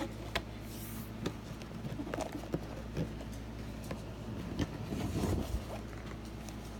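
Packaging being handled while a box is opened: scattered light clicks and paper rustling, with a louder rustle about five seconds in.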